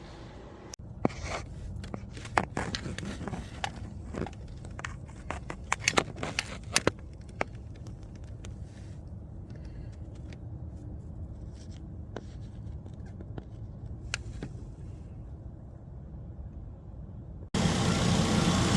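Sharp metallic clicks and clatter of hand tools at work on the thermostat of a 2015 Nissan Altima, in quick bunches for the first several seconds and then sparser, over a low steady hum. Near the end the sound cuts abruptly to the car's engine running loudly.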